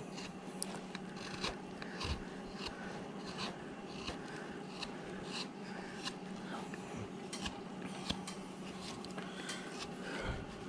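Carving knife paring very hard wood: a run of short, irregular slicing cuts and scrapes as the legs of a figure are rounded.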